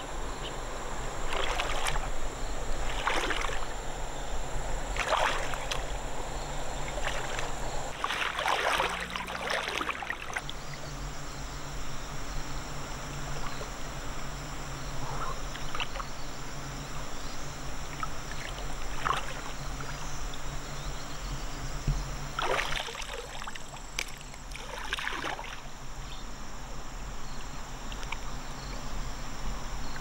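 River water splashing and sloshing in repeated short swishes, several close together in the first ten seconds and two more later on.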